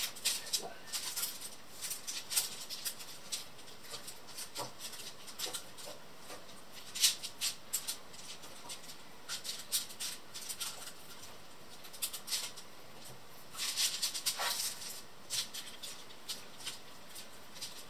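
Metal spoon scraping and clinking in a ceramic bowl and smearing a thick marinade paste over raw lamb chops: a run of short, high scrapes and ticks with gaps between, in a few louder clusters.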